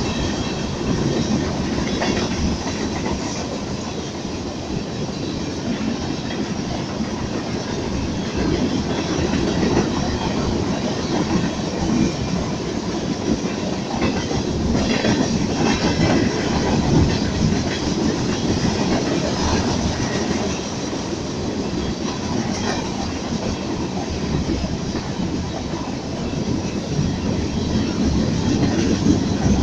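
Train cars rolling past at speed: a steady rumble and rattle of steel wheels on the rails, with some clickety-clack over the joints.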